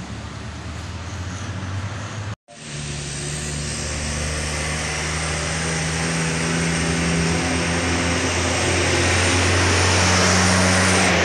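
Truck and bus engines and tyre noise growing steadily louder as a red cargo truck approaches and passes close by, with a bus following. There is an abrupt cut to silence about two and a half seconds in.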